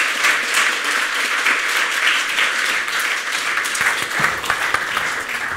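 Audience applauding, the dense patter of many hands clapping, steady throughout.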